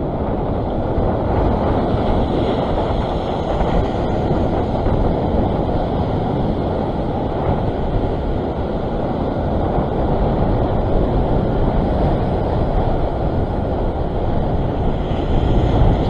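Steady noise of wind blowing on the microphone and sea waves washing against a rock ledge, growing a little louder near the end as a larger surge comes in.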